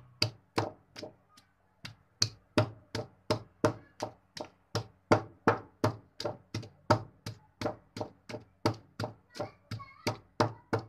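Wooden pestle pounding ginger and green chilies in a stone mortar: steady, dull knocks at about three strokes a second, with a short pause about a second in.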